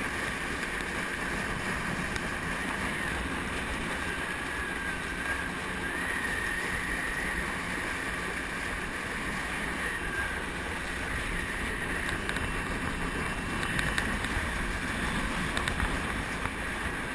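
Motorboat under way at steady speed: an even mix of engine noise and rushing water, with wind.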